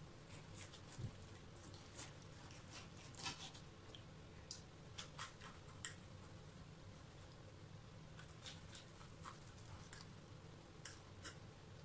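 Faint clicks and scrapes of a table knife and fork cutting through pan-fried chicken on a plate, coming a few at a time in irregular clusters.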